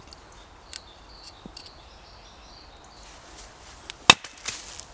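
A hatchet splits a seasoned log: one sharp crack about four seconds in, followed by a couple of lighter knocks as the pieces fall.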